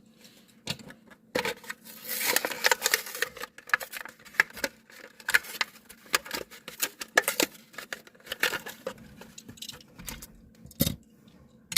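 Hot Wheels blister package being opened by hand: stiff plastic bubble and cardboard backing crackling, tearing and clicking in irregular bursts, busiest a couple of seconds in.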